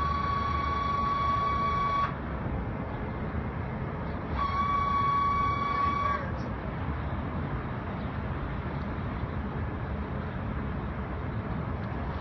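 A steady high-pitched tone sounds twice, the second time for about two seconds, over continuous low background noise.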